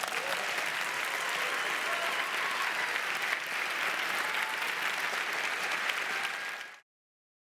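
Audience applauding steadily in a hall, cut off suddenly near the end.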